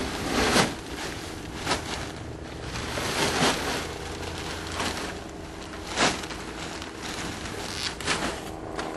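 Large plastic bag of expanded clay pebbles being lifted and handled, crinkling and rustling in several short bursts.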